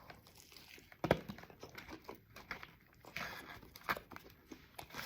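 A person eating a chicken sandwich close to the microphone: scattered chewing and mouth clicks with some crinkling, the sharpest click about a second in.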